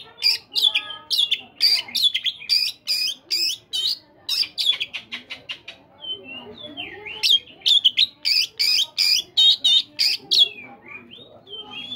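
Oriental magpie-robin (kacer) singing in a quick run of short, sharp, repeated high notes. The run breaks off briefly midway, then starts again.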